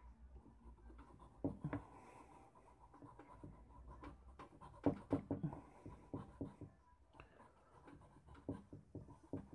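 Stick of charcoal scratching across drawing paper in short, repeated shading strokes, loudest in a cluster about five seconds in.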